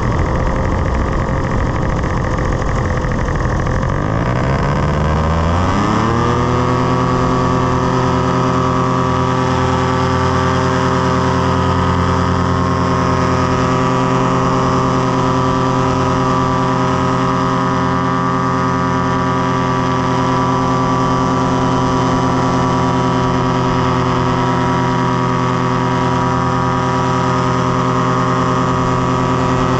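Powered paraglider trike's engine and propeller running in flight. About five seconds in, the engine revs up in a smooth rising pitch, then holds a steady higher throttle.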